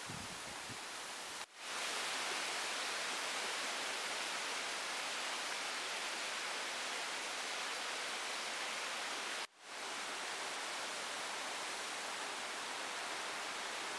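River water running over stones: a steady, even rushing hiss. It cuts out briefly twice, about a second and a half in and again near nine and a half seconds, where the footage is cut.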